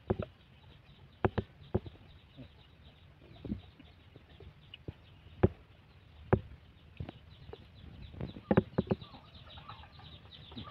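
Chickens clucking and peeping, the short high calls growing busier near the end, broken by a dozen or so scattered sharp knocks and clicks, the loudest about five and eight seconds in.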